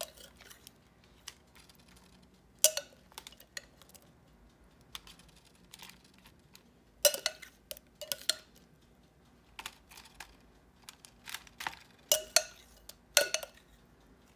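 Scattered sharp clicks and taps of a glass measuring cup being handled as wet, marinated onion pieces are picked out of it by hand and set on a parchment-lined pan, with small clusters about three seconds in, around seven to eight seconds, and near the end.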